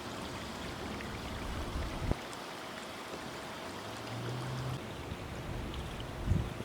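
Water running steadily in the fountain that turns a floating globe, with a couple of low thumps and a brief low hum about four seconds in.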